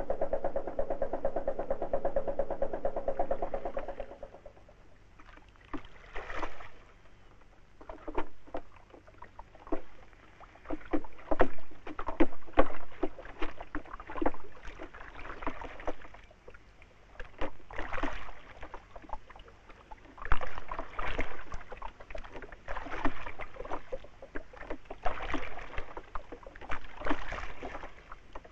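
A boat's engine running with a fast, even throb, which stops about four seconds in. Then water splashes and slaps against a small open boat, with wooden knocks, in irregular bursts about once a second.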